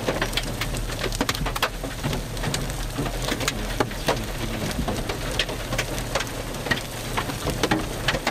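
Heavy thunderstorm rain pelting down: a steady rush with many sharp, irregular ticks of drops striking close by.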